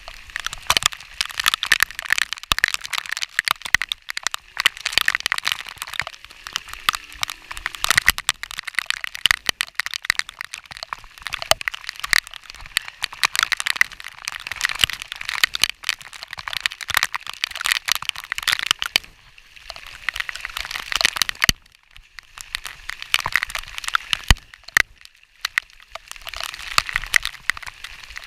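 Heavy rain drops striking right at the microphone, a dense, loud crackle of countless small hits, easing for a moment twice near the end.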